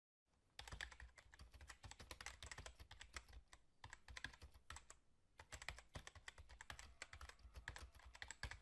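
Rapid, irregular clicking of keyboard typing, starting abruptly just after the start and cutting off sharply at the end.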